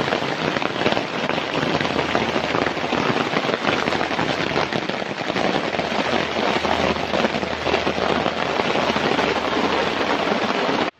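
Heavy rain drumming on an umbrella just overhead, a dense steady crackle of drops hitting the canopy. It cuts off suddenly near the end.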